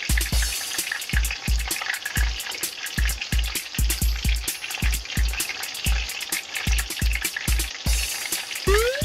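Battered pond smelt deep-frying in hot oil as tempura: a steady crackling sizzle. Background music with a steady drum beat plays underneath.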